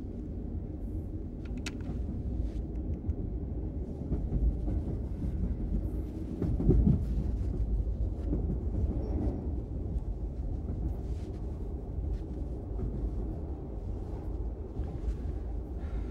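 Steady low rumble of a moving passenger train heard from inside a sleeping compartment, with faint scattered clicks and a louder low surge about seven seconds in.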